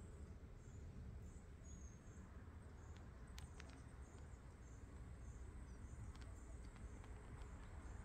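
Quiet forest ambience, close to silence: a steady low rumble, faint high chirps about once a second, and a few soft clicks.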